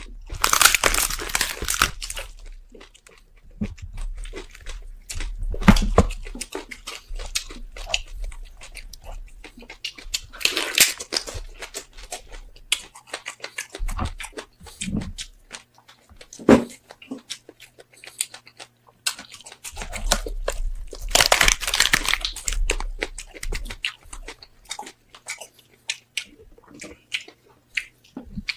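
Close-miked eating of roasted pork head: crunching bites and chewing with many small crackles and clicks, in three louder crunching bouts near the start, about ten seconds in and about twenty-one seconds in.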